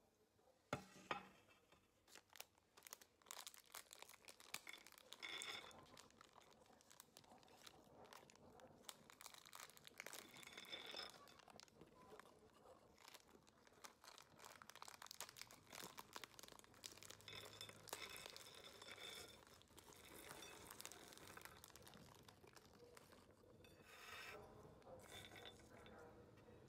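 Plastic snack bags crinkling and tearing open, with cashew nuts and then crispy green peas tipped out and rattling onto a ceramic plate. A sharp knock about a second in.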